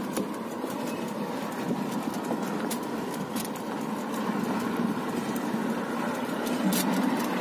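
DAF CF tractor unit's diesel engine running steadily at low revs as the truck moves slowly across a dirt yard, with a few light clicks over it.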